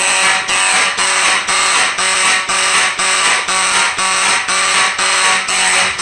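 Amseco BZ54VT motor horn sounding in march time, pulsing about twice a second with a raspy tone, which the owner says does not sound too healthy and needs repair.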